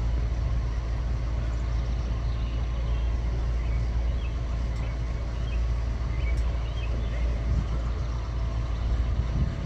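Steady low rumble of an approaching LIRR diesel locomotive, still far down the track, with birds chirping now and then.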